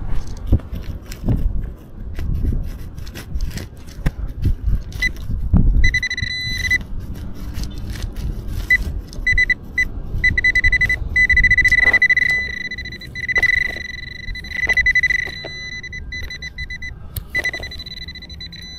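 Nokta Accupoint pinpointer sounding its steady high alert tone, cutting in and out and held for long stretches around the middle, as it is worked through the ground onto a buried coin. It is preceded by scraping and knocks from digging with the pinpointer's scoop.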